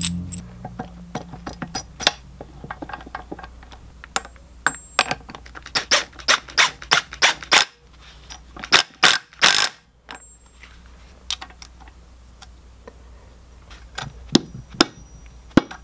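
Metal clicks and clinks of a driveshaft adapter flange and its nut being fitted to a Getrag 260 transmission's output shaft, with a few short bursts of a Snap-on cordless impact wrench running the nut on, bunched a little past the middle. A few more clicks come near the end.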